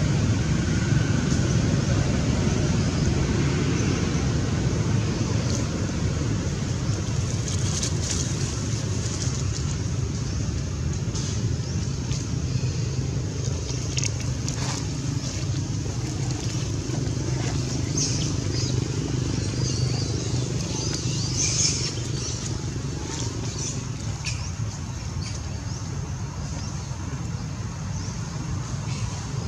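Steady low outdoor rumble, easing slightly near the end, with a few faint scattered clicks.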